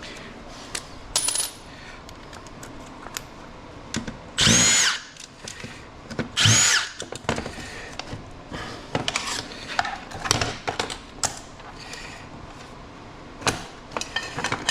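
Cordless drill run in two short bursts about two seconds apart, each whining up in pitch and back down, as it drives screws out of an ELD unit's case. Light clicks and knocks of plastic parts being handled come between the bursts.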